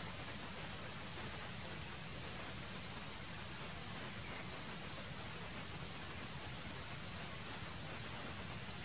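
Steady insect chorus: one even, high-pitched buzz that holds without change, over a faint background hiss of outdoor ambience.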